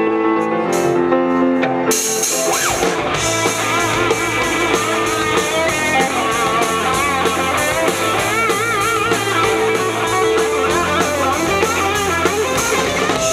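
Live rock band playing an instrumental intro: it opens on held chords, then drums and cymbals come in about two seconds in, under electric guitars with a wavering, bending lead line.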